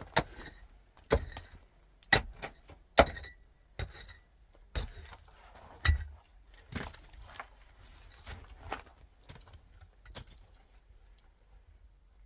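A series of sharp knocks, about one a second, some with a brief metallic ring, getting weaker over the last few seconds.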